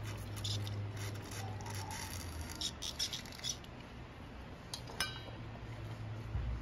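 Short hissing bursts of aerosol carburetor cleaner sprayed through a small brass carburetor emulsion tube via the can's straw: one near the start, then several in quick succession about three seconds in. About five seconds in comes a sharp click with a brief ring, over a steady low hum.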